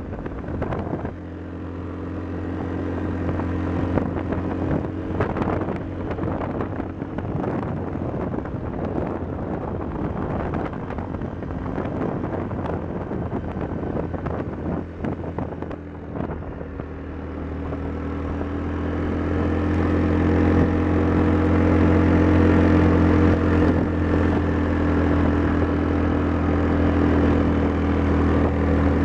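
ATV engine running steadily while riding a dirt road, with short rattles and knocks from the bumps through the first half. The engine grows louder about two-thirds of the way in and holds there.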